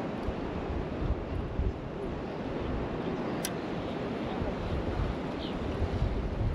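Wind gusting on the microphone over the steady wash of ocean surf, with a single sharp click about three and a half seconds in.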